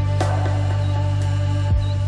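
Soft background music with sustained low tones.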